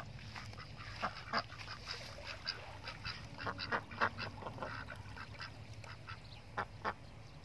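Domestic duck quacking in a quick run of short quacks between about one and five seconds in, then two more near the end.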